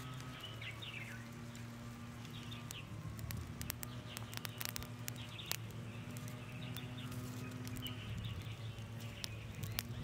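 Wood and charcoal fire crackling under grilling steaks, with scattered sharp pops. Small birds chirp in the background, and a low steady hum runs underneath.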